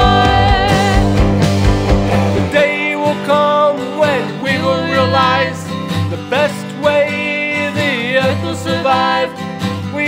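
Song with singing over a guitar-led backing. The deep bass drops out about two and a half seconds in, leaving a lighter accompaniment under the voice.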